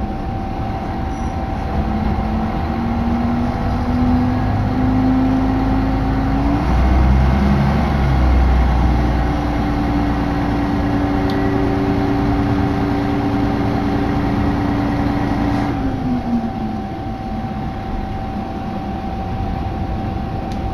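Diesel railcar heard from inside the carriage while under way. Its engine note rises in pitch as the train accelerates, breaks off about six seconds in with a deep rumble, then settles into a steady drone that drops away about sixteen seconds in, all over the running noise of the train on the track.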